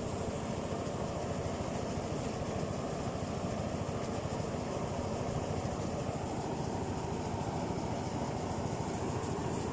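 Engine-driven rice thresher running steadily.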